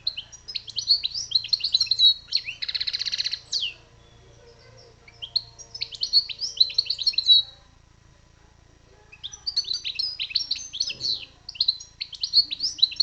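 European goldfinch singing: quick twittering phrases of rapid high chirps and trills in three bursts, with short pauses about four and eight seconds in. A harsh buzzy note sounds about three seconds in.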